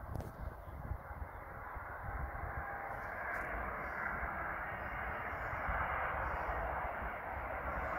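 Distant jet noise from a Mitsubishi CRJ-900's twin rear-mounted turbofans, a broad rushing sound that grows steadily louder.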